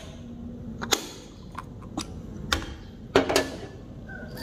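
A handful of sharp clicks and light knocks of hard objects being handled, about six spread over four seconds, two of them with a short low ring after.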